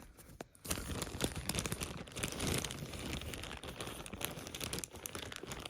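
Packaging crinkling and rustling as it is handled and pulled open, a dense run of small crackles that starts just under a second in.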